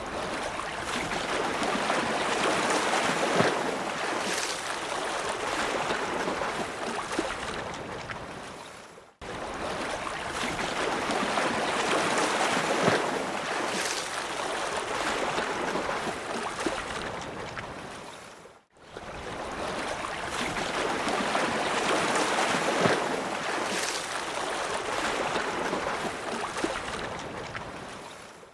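Rough sea sound effect: waves surging and rushing water, in a loop about nine and a half seconds long that fades out and starts again twice.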